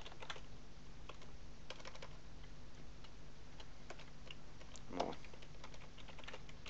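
Computer keyboard typing: light, irregular key clicks as a line of code is deleted and retyped.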